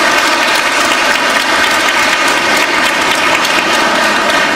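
Audience applauding steadily, beginning to die down near the end.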